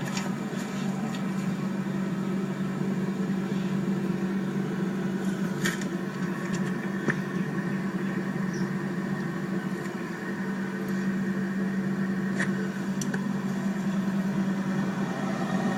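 Four-door commercial glass-door refrigerator running, its compressor and fan making a steady hum, with a few faint ticks along the way.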